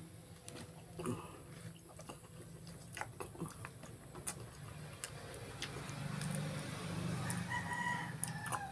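A rooster crowing, loudest near the end, over small sharp clicks and taps of food being picked apart by hand on a leaf-lined tray.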